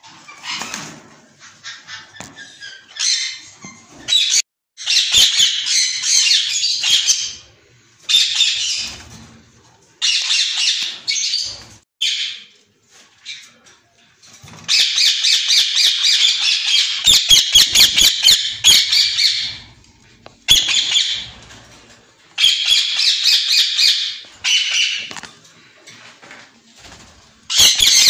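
Caged white Indian ringneck parakeets squawking: loud, harsh calls in repeated runs of one to several seconds, with short pauses between.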